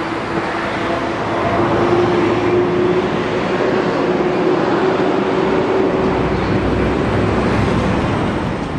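Steady vehicle noise: a loud rumbling hiss with one held engine hum over it.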